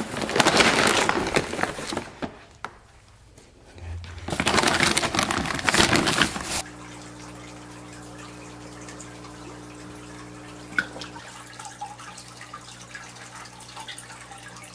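Plastic feed bag rustling loudly in two spells as a hand scoops feed. Then a steady electrical hum from aquarium equipment, with faint dripping water and small ticks.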